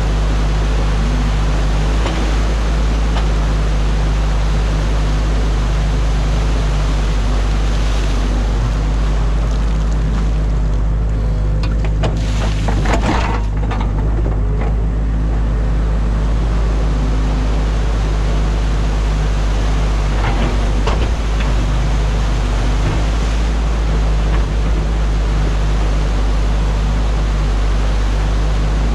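New Holland wheeled excavator's diesel engine running steadily under hydraulic load, heard from inside the cab, over the rush of water pouring through a breached beaver dam. A few knocks come about halfway through as the bucket works.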